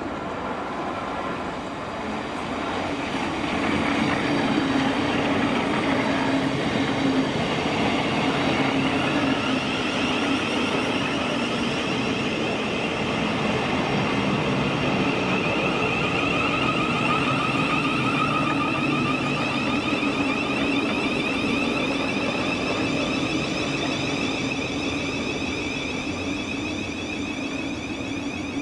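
Thameslink Class 700 electric multiple unit running along the platform, a steady rumble of wheels on rail. From about ten seconds in, a high steady whine sits on top of it.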